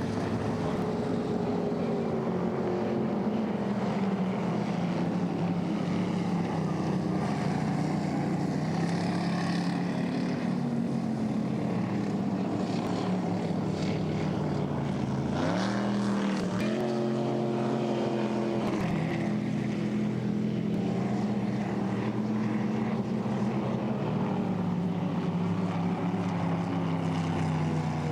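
Racing boat inboard engines running hard and steadily. The pitch sags slowly, then rises sharply about halfway through as the throttle opens.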